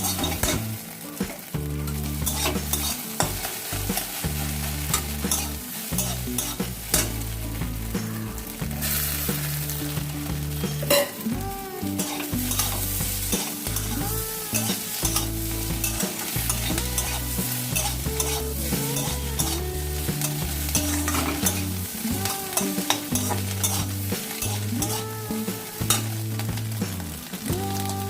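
Egg frying in mustard oil in a pan: a continuous sizzle with a spatula stirring and scraping, clicking against the pan again and again.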